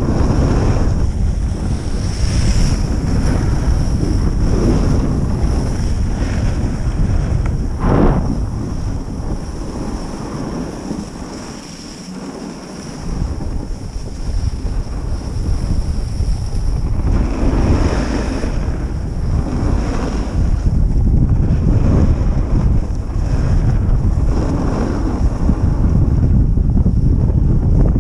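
Wind rushing over the microphone of a camera carried by a moving skier, mixed with skis hissing over groomed snow. It eases for a few seconds near the middle, and there is a single sharp knock about a third of the way through.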